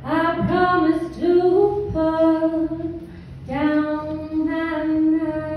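A woman singing solo a cappella into a microphone: long, held notes in two phrases, with a short breath between them a little past halfway.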